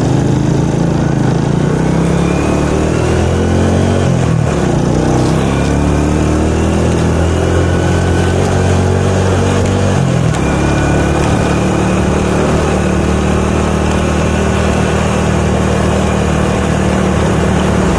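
A motorcycle engine running as the bike rides along, its note shifting with throttle and changing about ten seconds in, over a steady rush of wind and road noise.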